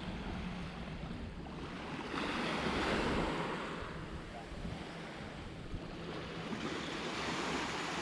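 Sea waves washing up the beach, swelling twice: once about two seconds in and again near the end. Wind rumbles on the microphone underneath.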